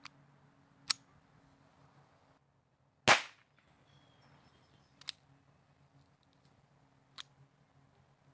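A single shot from an Astra Cub pocket pistol firing a CCI .22 Short CB round: one sharp crack about three seconds in. Lighter metallic clicks from the pistol being handled come before and after it, one near the start and a louder one about a second in, then two more later. The low-powered CB round is too weak to cycle the action.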